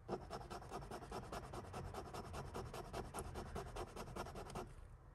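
Quick, even back-and-forth scratching or rubbing against a hard surface, about ten strokes a second, stopping about four and a half seconds in.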